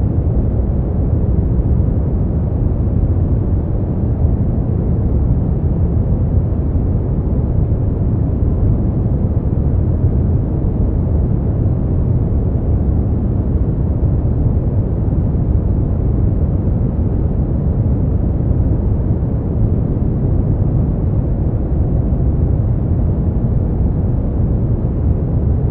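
Brown noise: a steady, deep rumbling hiss, strongest in the low end and dull in the highs, unchanging throughout.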